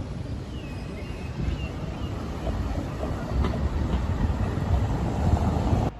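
Rail vehicle running on the track: a steady rumble that grows louder towards the end, with a single click about three and a half seconds in.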